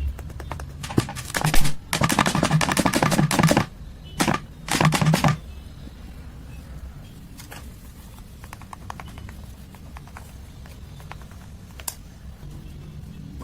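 Rapid clattering of hard objects in three loud bursts, the first and longest about two seconds in, then faint scattered clicks.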